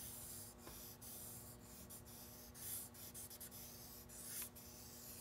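Willow charcoal rubbed flat against paper, a faint scratchy rasp that swells a little twice as the strokes press harder.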